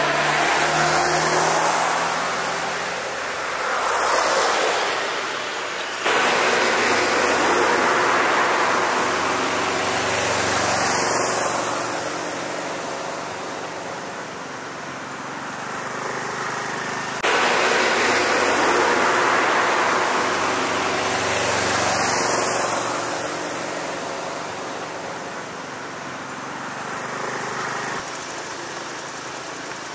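Road traffic: cars and other vehicles driving past one after another, each swelling and fading as it goes by. The sound jumps abruptly twice, about six seconds in and again past halfway.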